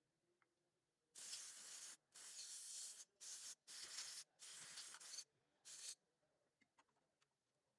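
Aerosol cleaner sprayed in six short hissing bursts, some longer and some shorter, as a dirty VVT-i sensor is cleaned.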